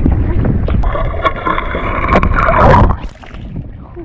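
Steady low wind rumble on the microphone aboard a boat, with a loud high whining squeal starting about a second in and cutting off near three seconds.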